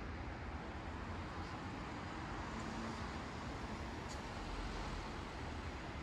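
Steady city street noise: a low rumble of road traffic.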